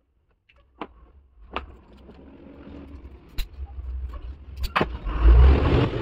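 Sharp clicks and taps from hands working a marker and a yellow wire on a board, over a rumbling rush that builds and is loudest about five seconds in.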